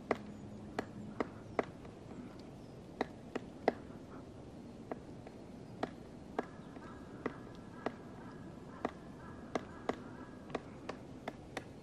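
Black woodpecker chiselling a hole into a conifer trunk: single hard pecks into the wood at irregular intervals, about one or two a second.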